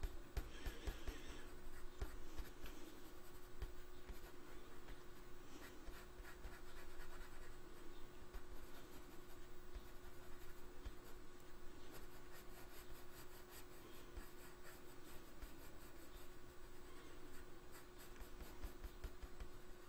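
Coloured pencil scratching on paper in short, quick shading strokes, with a faint steady hum underneath.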